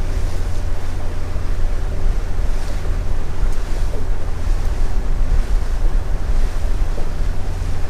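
Wind buffeting the microphone with a steady low rumble, over water rushing past a small boat under way and its engine running steadily.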